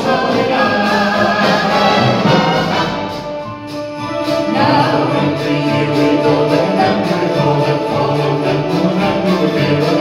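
A swing big band plays live, with brass and saxophones, while a close-harmony vocal group sings over it. The sound thins out briefly about four seconds in, then the full band and voices come back in.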